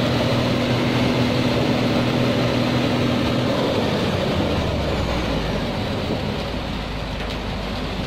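Hino 500 concrete mixer truck's diesel engine running at raised speed to turn the drum. About three and a half seconds in the revs drop and it settles into a lower, steady run.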